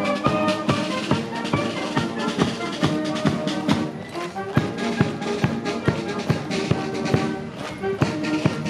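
Military band playing, with rapid drum strokes under held melody notes.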